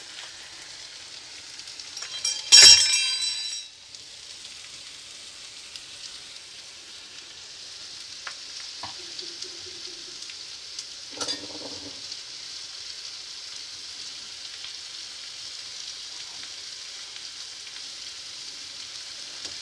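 Chopped onions sizzling steadily in hot coconut oil in an aluminium kadai. A loud metallic clatter with some ringing comes about two and a half seconds in, and a shorter knock about eleven seconds in.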